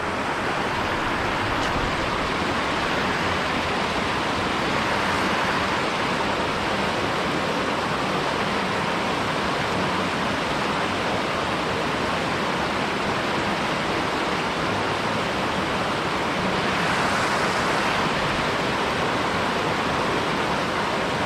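Rushing water of a mountain headwater stream, a steady, even rush with no break.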